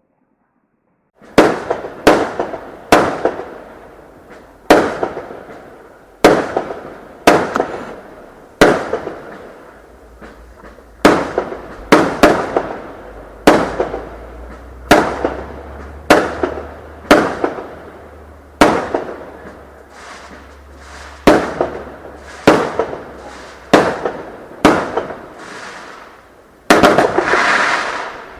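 Fireworks bursting overhead: after a short silence, a steady run of about twenty sharp bangs, roughly one a second, each trailing off in a short echoing tail. It ends in a longer, denser crackling burst.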